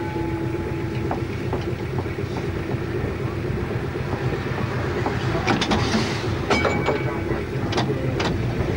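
Interurban tram running along its track, seen from the driver's cab: a steady rumble of wheels on rail with irregular clicks and knocks from the track, and a short ringing tone about two-thirds of the way through.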